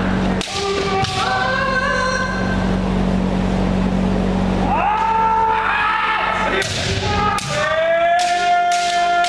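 Kendo practitioners shouting long, held kiai while bamboo shinai clack against each other and strike armour, with a quick run of sharp hits near the end.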